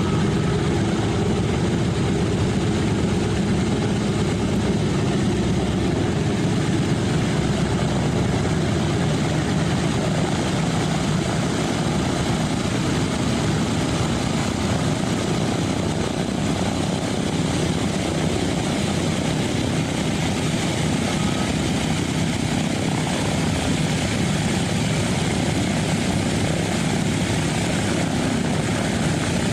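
Four Wright R-1820 Cyclone nine-cylinder radial engines of a Boeing B-17G Flying Fortress running steadily, propellers turning, as the bomber taxis.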